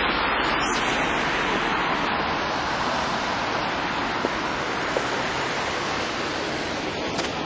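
Steady hiss of rain falling, even and unbroken throughout.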